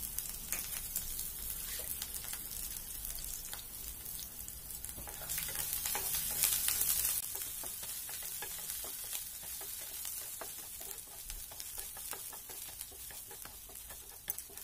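Chopped garlic and green chillies sizzling in hot oil in a nonstick frying pan, stirred with a wooden spatula that scrapes and taps the pan. The sizzle grows louder for a couple of seconds about halfway through.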